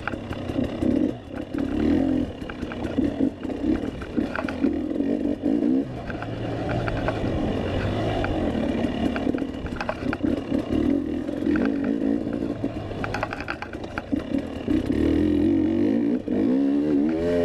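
Dirt bike engine revving up and down with the throttle as it is ridden over rough trail, with scattered clattering knocks from the bike over the terrain.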